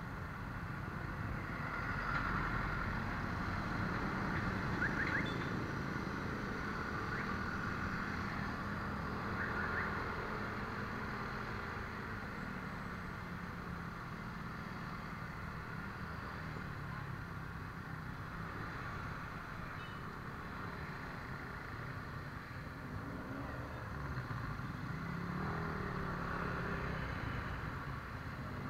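Steady engine and road noise of a motor scooter riding slowly through congested city traffic, with other motorcycles and cars running close by. The rumble swells a little now and then but never stops.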